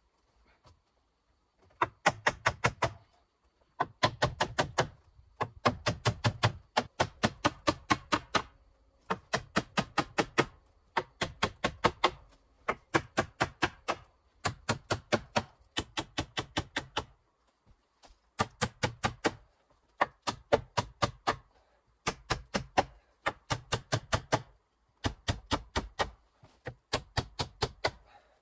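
Hammer blows nailing peeled wooden crosspieces onto pole rafters: runs of quick, sharp knocks, several a second, each run about a second long with short pauses between.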